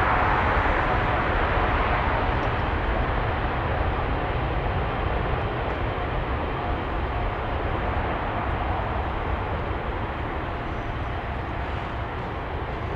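Boeing 747-8 freighter's four GEnx turbofan engines at takeoff power, a broad roar that fades steadily as the aircraft moves away after passing.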